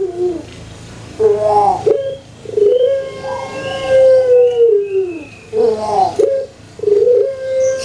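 Puter pelung (Barbary dove, Streptopelia risoria) cooing, its "kuk gerukkk kwokkk" song: a quick stuttering run of notes about a second in, then a long held coo that drops in pitch as it ends. A second stuttering run follows, and another long coo begins near the end.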